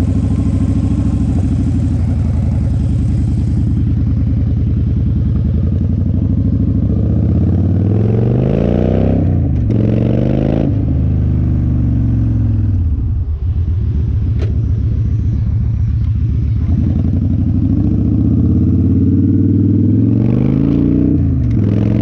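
Victory Vegas V-twin motorcycle engine running through a Bassani Pro-Street turnout exhaust, pulling away under acceleration. The revs rise and drop back twice, about eight and ten seconds in, as it shifts up. The engine eases off briefly a little past halfway, then builds again near the end.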